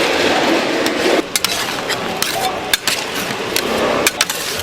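Repeated sharp knocks and metallic clinks of kitchen utensils being worked, over a steady background noise.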